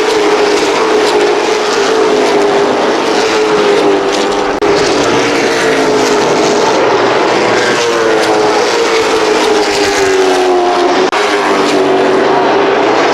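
NASCAR Whelen Modified race cars' V8 engines running loud at speed on the track, their pitch rising and falling as they circle. The sound drops out for an instant twice, about four and a half seconds in and again near eleven seconds.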